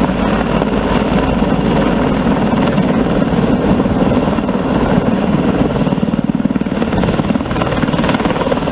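Sikorsky CH-53 heavy transport helicopter flying past low: the rapid beat of its six-bladed main rotor over the noise of its turbine engines, loud and steady, dipping slightly about six seconds in before coming back up.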